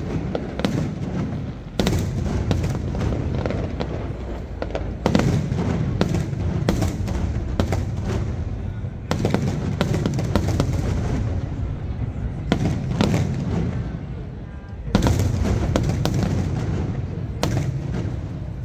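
Aerial fireworks display: a dense run of sharp bangs and crackling shell bursts over a continuous low rumble, with a loud volley about fifteen seconds in.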